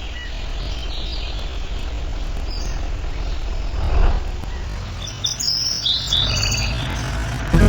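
Birds chirping in short high calls, most of them in the second half, over a steady low rumble of road traffic.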